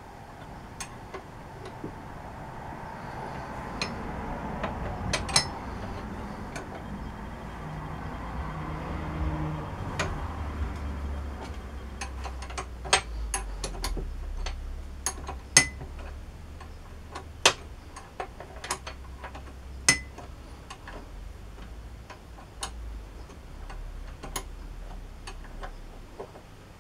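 Metal lathe work while drilling a steel tailstock quill: irregular sharp metallic clicks and taps throughout, over a low steady hum that sets in about a third of the way through.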